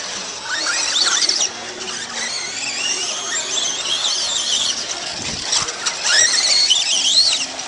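Radio-controlled off-road trucks' motors whining at a high pitch, the pitch rising and falling over and over as the trucks speed up and slow down around the track. Several whines overlap at times.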